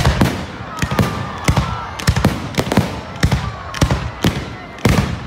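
Fireworks display: a rapid, steady barrage of sharp bangs from bursting shells, about three a second.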